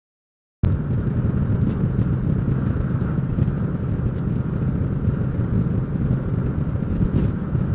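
Steady low rumble of road and engine noise inside a moving car's cabin, starting suddenly about half a second in.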